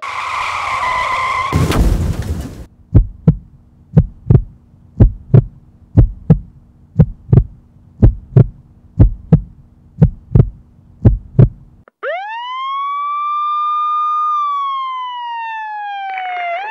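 A burst of noise with a loud hit about two seconds in, then a heartbeat sound effect thudding in double beats about once a second over a low steady hum. About twelve seconds in the heartbeat stops and a siren winds up, holds and falls away, starting to rise again at the end.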